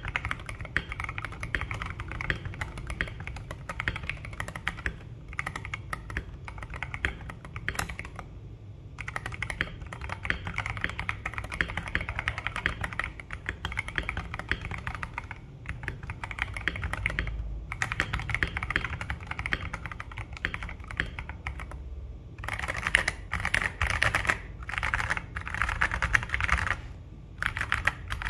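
Continuous fast typing on a KBD67 Lite R2 mechanical keyboard with C3 Kiwi tactile switches, in runs broken by brief pauses, and a louder flurry of keystrokes near the end.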